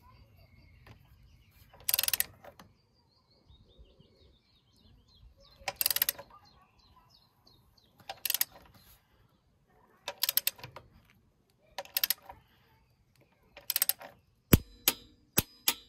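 Torque wrench ratchet clicking in short bursts, about one every two seconds, as it is swung back and forth to tighten engine mount nuts to 115 newton metres. Several single sharp clicks follow near the end.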